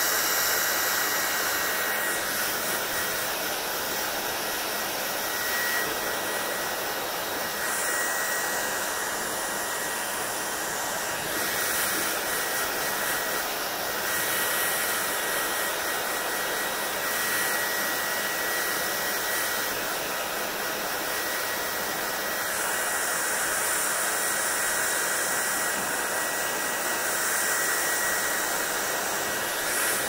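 Hand-held hair dryer running steadily, a rushing airflow with a thin, steady whine. The hiss brightens and dulls every few seconds as the dryer is moved through wet hair.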